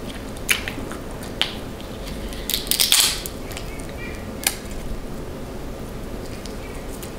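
Eating a seafood boil: a few sharp clicks and a short burst of crackling crunches about three seconds in, from handling and biting into the food.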